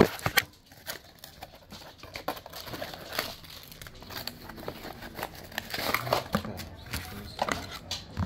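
Product packaging being handled and opened: rustling and crinkling of paper and plastic, with scattered clicks and taps and a sharp click right at the start.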